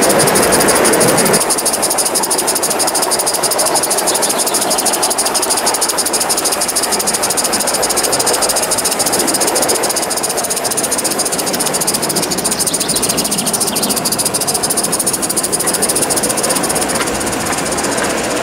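Accucraft Southern Pacific F4 2-10-2 live-steam garden locomotive running under steam: a fast, even patter of exhaust beats over a steady hiss.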